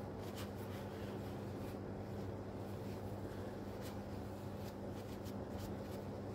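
Faint light clicks and scraping of hands and tools working on chainsaw parts, scattered irregularly over a steady low hum.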